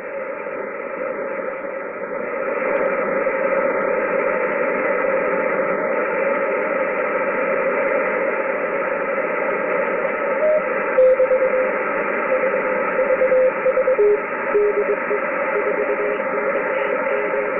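Shortwave HF radio receiver hiss with Morse code (CW) coming through. About halfway in, a single low beep tone starts keying on and off in dots and dashes over the static.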